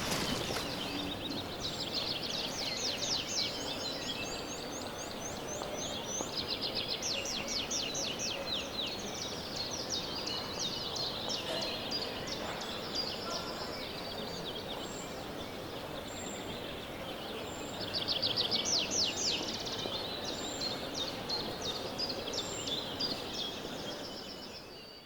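Birds calling in fast trills of quick repeated high chirps, coming in runs of a few seconds with the loudest run near the end, over a steady outdoor background hiss.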